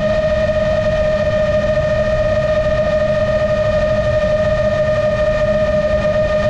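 GepRC MOZ-7 7-inch long-range FPV drone's motors and propellers running at steady cruise throttle: a constant whine with a stack of overtones, over a low rumbling noise.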